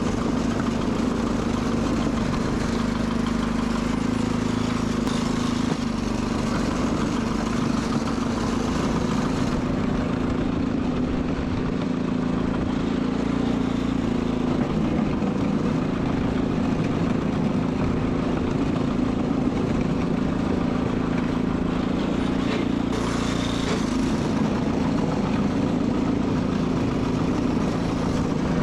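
Sears Suburban SS12 garden tractor engine running steadily at an even speed.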